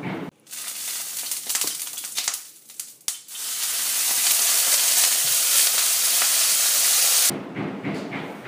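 A harsh, crackling hiss cuts in suddenly and breaks up for the first three seconds. It then holds as a steady, loud hiss for about four seconds before cutting off abruptly.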